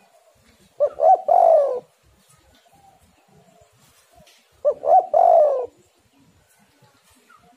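Spotted dove cooing twice, about four seconds apart: each phrase is two short notes and then a longer coo that falls in pitch.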